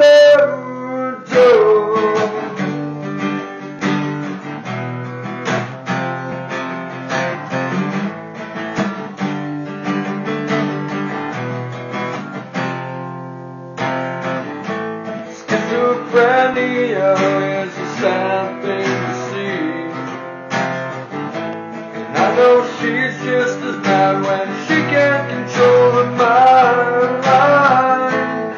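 Acoustic guitar strummed and picked with a man singing along. The singing drops out after the first couple of seconds for a guitar-only passage that thins out and fades, then the strumming picks up again and the singing returns about halfway through.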